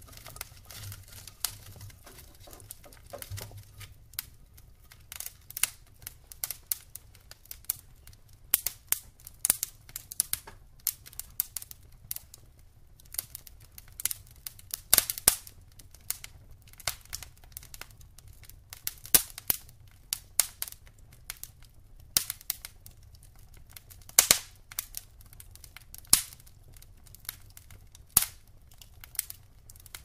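Logs burning in a fireplace, crackling with irregular sharp pops, several of them loud, over a faint steady low rumble.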